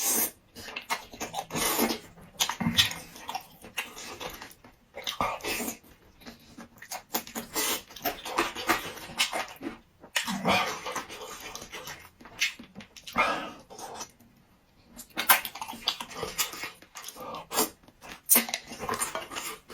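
A person eating close to the microphone: irregular slurping and chewing noises in short bursts with brief pauses.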